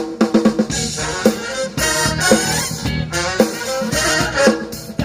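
Live go-go band playing an instrumental passage: a drum kit keeps a busy snare-and-rimshot beat while the horn section plays a riff.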